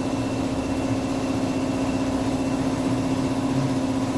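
Seat Ibiza's 1.2 TDI three-cylinder diesel idling steadily, making the noise of compression escaping from the first cylinder past its burnt injector seal.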